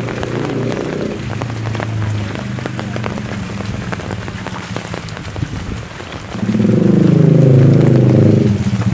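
Rain falling, with many sharp drop impacts, over a steady low engine hum; about six seconds in a louder engine sound swells for a couple of seconds, then eases off near the end.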